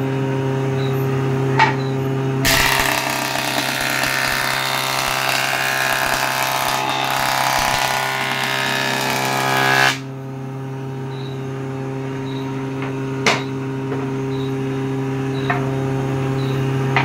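Electric jointer-planer running with a steady hum. About two and a half seconds in, a wooden board is fed over the spinning cutterhead: a loud planing noise for about seven seconds that cuts off suddenly, after which the machine runs free and the board knocks once.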